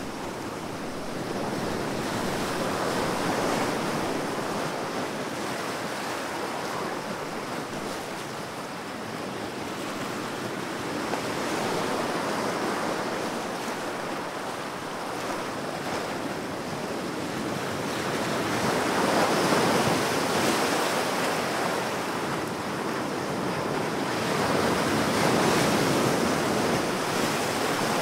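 Ocean surf: a steady rush of breaking waves that swells louder and falls back every six to eight seconds.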